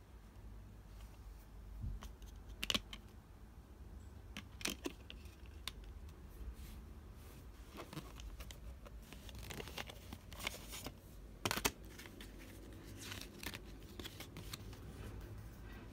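Handling of an open plastic CD jewel case and its paper lyric insert: scattered sharp clicks and short rustles of paper as the folded sheet is pulled out and opened, over a faint low hum.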